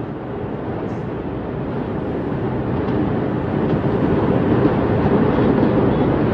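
Steady low rumbling roar, like wind buffeting the microphone, with no distinct bangs, slowly growing louder.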